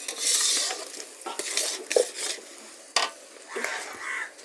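A cooking utensil stirring and scraping in a pan of curry masala, with repeated knocks against the pan over a sizzle of hot oil.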